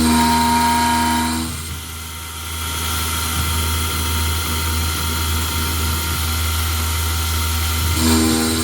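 KX-3 CNC mill running while machining a cast iron flywheel blank: a steady low hum under a pitched whine that drops away about a second and a half in and comes back near the end.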